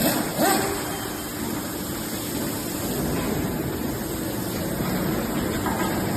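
Excavator with a mower attachment running: a steady mechanical noise with a faint low hum, and two short louder bursts in the first half-second.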